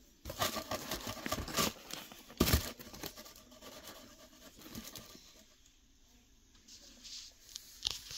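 Tissue paper rustling and crinkling as a paper-stuffed sneaker is handled in its cardboard shoebox, with one sharp thump about two and a half seconds in. The handling quiets down after about three seconds, with a couple of light clicks near the end.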